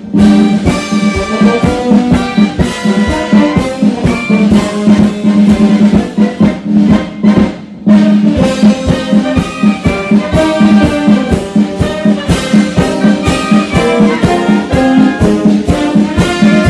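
Military wind band playing: brass with tuba and woodwinds including flute, over a steady drum beat. The music breaks off briefly about halfway through, then comes back in.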